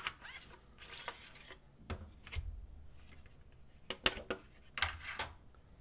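Clear plastic blister pack crinkling and snapping as it is handled and a pair of pliers is worked out of it, in scattered sharp clicks and short rustles. There is a soft low knock about two and a half seconds in.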